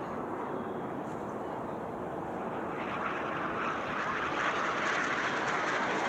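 Jet noise from the Frecce Tricolori's Aermacchi MB-339 trainers passing overhead. It is a steady, even rush that swells louder and hissier from about halfway through as the jets approach.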